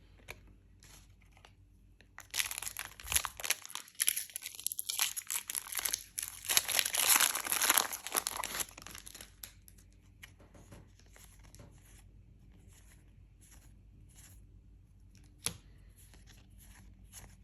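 A foil Lorcana booster pack wrapper being torn open and crinkled, a dense crackling that lasts about seven seconds. Then come faint ticks of trading cards being handled, with one sharper click near the end.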